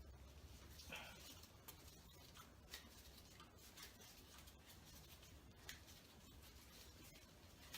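Near silence: a low steady hum with a few faint scattered clicks.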